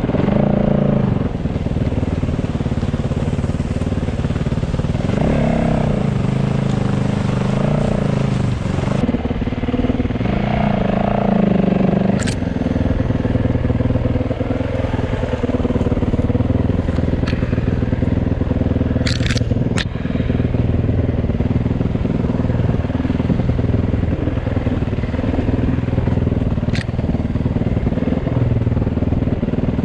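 Enduro motorcycle engine running under throttle, the revs rising and falling over the first dozen seconds and then settling to a steadier, lower note. A few sharp clicks cut through it about twelve seconds in, again around twenty seconds, and near the end.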